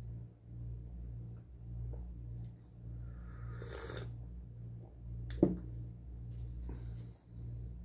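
A slurping sip from a mug, then the mug set down on the table with one sharp knock about five and a half seconds in. Under it is a low hum from a window air conditioner.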